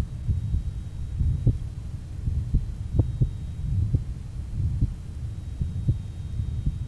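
Heart sounds recorded from the chest at the aortic area of a patient with rheumatic heart disease, mitral stenosis and mitral insufficiency: a repeating series of short, sharp heartbeats over a steady low hum.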